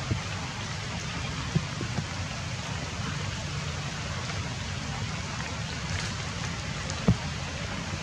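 Light rain falling steadily on the forest canopy, with a few sharper taps, the loudest about seven seconds in.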